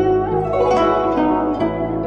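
Instrumental background music of plucked strings, with notes changing every fraction of a second over a steady low tone.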